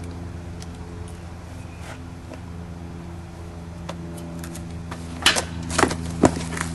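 A steady low mechanical hum, with a handful of sharp knocks or footstep-like clicks in the last two seconds.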